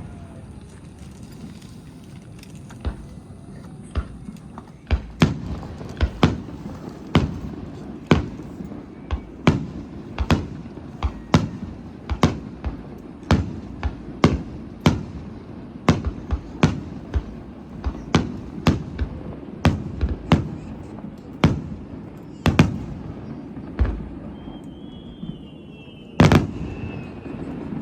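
Aerial fireworks bursting in quick succession, sharp bangs about one or two a second over a steady low rumble. Near the end a single longer, louder blast follows a faint wavering high whistle.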